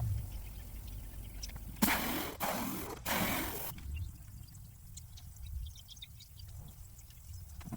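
Liquid pouring or splashing in two short spells, about two and three seconds in, the second lasting just over a second, over a faint low background rumble.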